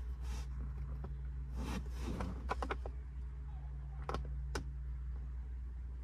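Phillips screwdriver turning a screw in a plastic steering-column shroud: scattered small clicks and scrapes over a steady low hum. The screw is loose but spins without backing out.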